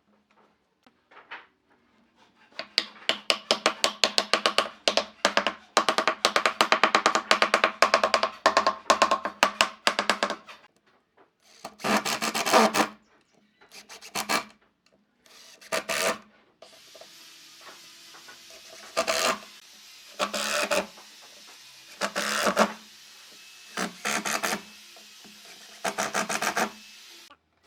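A hand tool rubbing and scraping on wood: a fast run of short strokes for several seconds, then slower single strokes every second or two.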